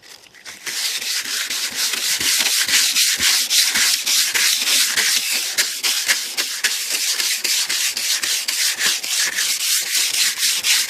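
Sandpaper scrubbing back and forth over the old paint on a 1988 Cadillac DeVille's body panel in quick, even strokes, starting about half a second in. It is dry sanding to scuff the paint so new paint will stick.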